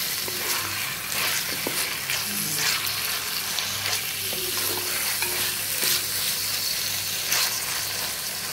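Minced beef and chopped onions sizzling in hot ghee in a clay pot, stirred and scraped with a wooden spoon, with a steady crackle and scattered clicks.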